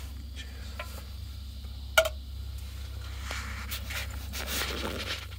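Handling noise from a phone being moved about inside a fabric ground blind: one sharp click about two seconds in, then rustling of fabric and clothing, over a steady low rumble.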